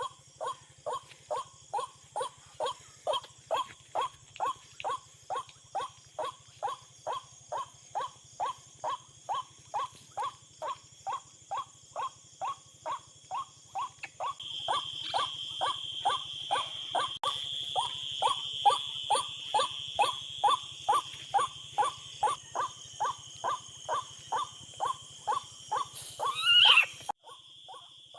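A bird call of short notes repeated steadily, about two a second, with insects trilling in the background from about halfway. Near the end comes one loud rising call, after which the repeated notes carry on more faintly.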